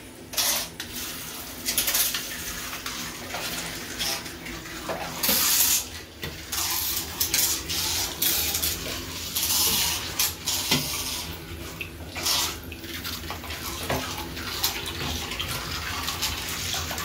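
Water splashing and sloshing in a shallow bathtub as small battery-powered toy boats run through it, in uneven surges.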